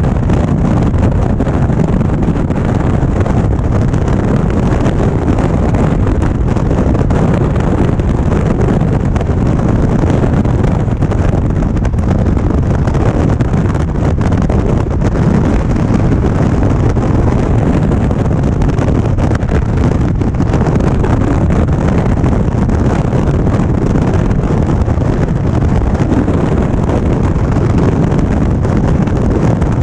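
Steady wind rush on the microphone over the low drone of a 2016 Indian Springfield motorcycle's V-twin engine, riding at a steady speed.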